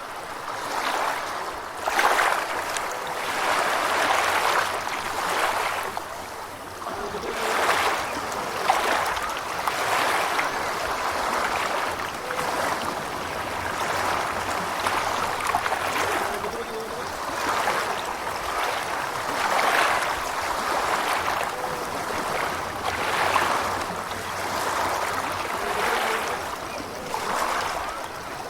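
Gentle ocean waves washing and splashing at the shore, swelling and easing every two to three seconds.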